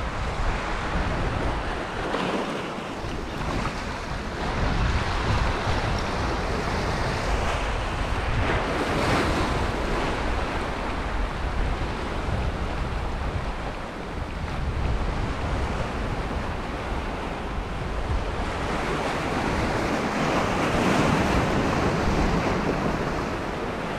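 Sea swell washing over and around boulders, the surges rising and falling with a louder wash about nine seconds in and another near the end, with wind buffeting the microphone.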